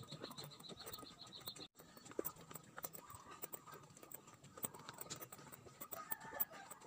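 Faint, irregular light footsteps on a concrete path. Over the first part a rapid, high-pitched chirping repeats several times a second, then stops abruptly a little under two seconds in.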